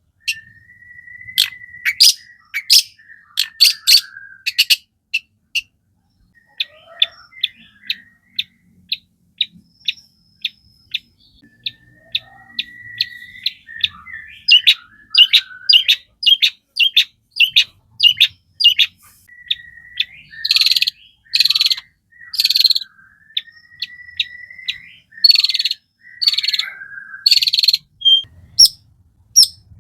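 Long-tailed shrike (cendet) singing continuously: fast runs of short, sharp chipping notes mixed with thin whistled glides, and a few longer harsh, rasping notes past the middle and near the end.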